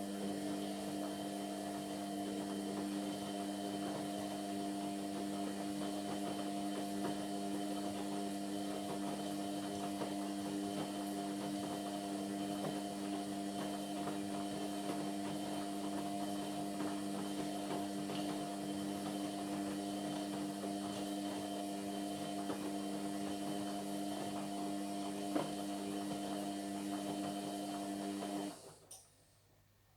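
Indesit MyTime washing machine's motor turning the drum during the Cotton 60 wash, a steady hum that cuts off abruptly near the end as the drum pauses.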